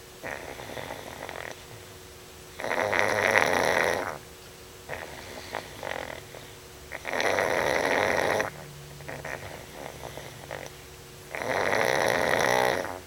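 Pug snoring in deep sleep: three loud rasping snores, each about a second and a half long and roughly four seconds apart, with quieter snuffling breaths in between.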